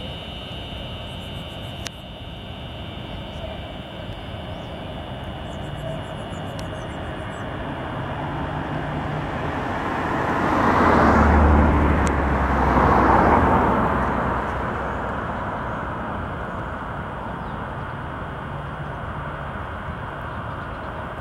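Outdoor background noise with a vehicle passing by: a low engine rumble builds up, is loudest a little past the middle, then fades away over a few seconds.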